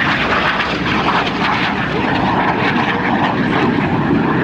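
Steady jet engine noise from a formation of Aermacchi MB-339 jets flying past overhead.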